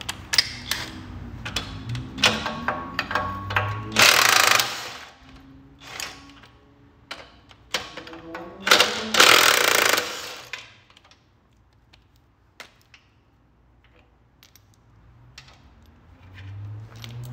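DeWalt cordless impact wrench hammering out the bolts that hold the drive-shaft bearing to the frame, in two bursts of about a second each, a few seconds apart. Sharp metal clinks and knocks of the wrench and socket come between them.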